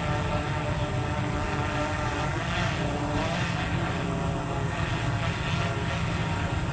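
Electric drone propellers whirring steadily, a many-toned buzz that shifts a little in pitch as the motors adjust.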